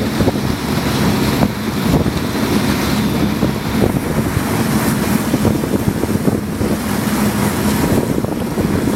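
Wind buffeting the microphone over the steady rush of sea water around a moving whale-watching boat.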